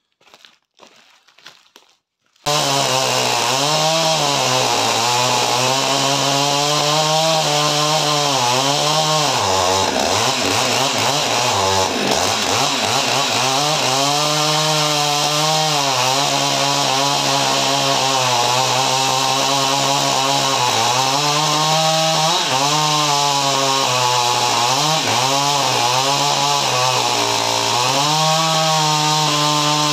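Faint handling noises, then about two seconds in a Husqvarna 550 XP Mark II two-stroke chainsaw comes in abruptly at full throttle, cutting through a large log. Its pitch sags and recovers several times as the chain loads up in the wood, dropping most deeply around the middle.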